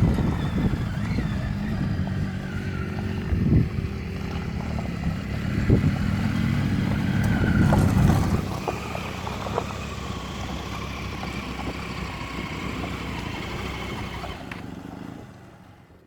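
Off-road vehicle engine running while driving, with several sharp knocks from the rough track; the sound fades away near the end.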